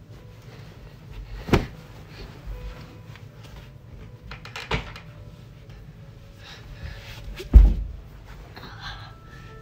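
A person moving about on the floor with a blanket: rustling and handling noise with three knocks, the heaviest a loud low thump about seven and a half seconds in.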